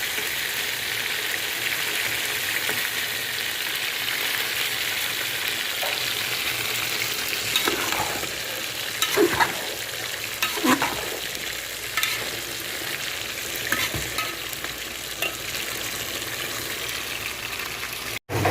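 Bottle gourd sizzling steadily in hot oil in a cooking pot as it is fried down, with several short scrapes of a stirring utensil against the pot about halfway through.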